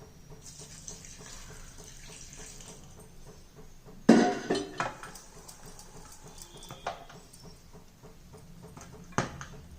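Water poured over jaggery in a bowl for a couple of seconds to soak it, then a loud clatter of dishes about four seconds in, with single knocks near seven and nine seconds.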